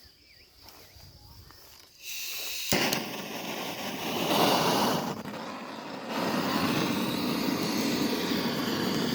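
A charcoal barbecue sizzling and crackling. It starts abruptly about two seconds in after faint insect chirping, with a sharp crack just after, dips for a moment around five seconds, then runs on as a steady hiss.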